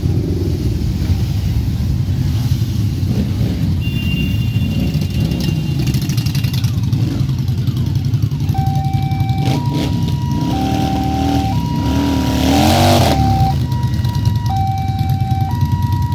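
Many motorcycle engines running as a column of bikes pulls away past the camera, with revs rising and falling and a loud surge of revving a little past the middle. From about halfway in, a two-tone siren alternates between a high and a low note about once a second.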